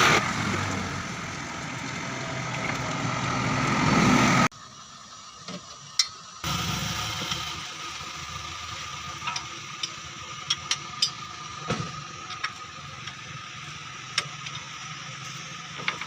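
A vehicle engine running, growing louder over the first four seconds and then cut off abruptly. After that it is quieter, with scattered sharp clicks and taps.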